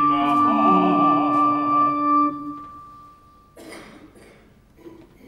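Operatic singing with a wide vibrato over a sustained synthesizer chord. The voice stops about two seconds in and the chord fades a second later, followed by a short rustle.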